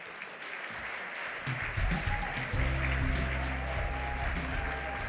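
Audience applauding while stage walk-on music plays, its deep bass notes coming in about a second and a half in.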